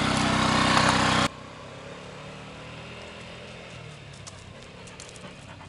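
Honda Ruckus scooter's 49cc four-stroke engine running up close, getting slightly louder, then cut off suddenly about a second in. After that comes a much quieter outdoor sound with the engine faint in the distance and a few light ticks.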